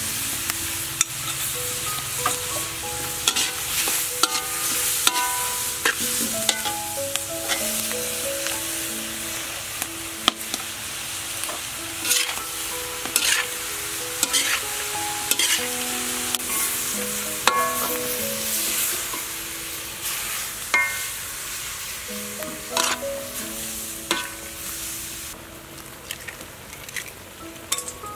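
Squid and shredded vegetables stir-frying in a wok: steady sizzling, with a metal spatula scraping and clacking against the pan. Near the end the sizzle dies down once liquid is in the wok.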